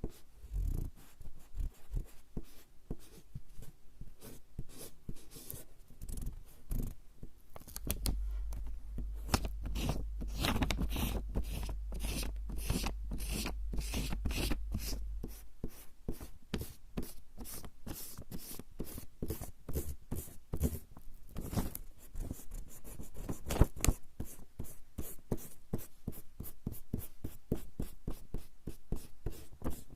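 Rubber eraser rubbed quickly back and forth on coarse straw paper (warabanshi): a continuous run of short rubbing strokes, about three or four a second, louder and heavier for several seconds in the middle.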